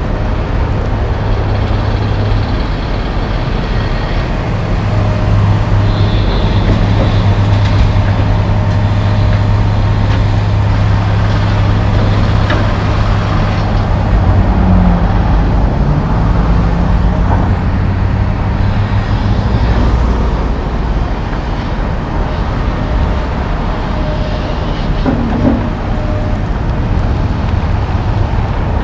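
Heavy diesel engines running: a John Deere 470G track excavator working as it digs and swings a load over a dump truck, which idles close by. The low engine drone is strongest from about five to twenty seconds in.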